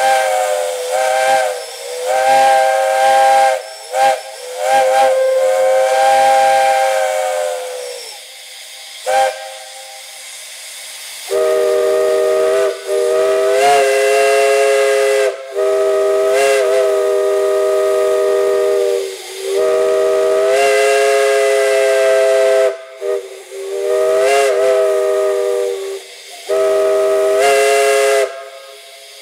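Steam chime whistles sounding chords of several notes. A higher-pitched whistle gives a string of short toots and one long blast; then, after a few seconds of hissing steam, a lower-pitched chime sounds a series of long blasts with brief breaks between them.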